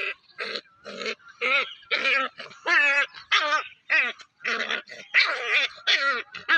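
Puppy yipping and whining in a quick series of short, high calls, about two a second, some with a wavering pitch.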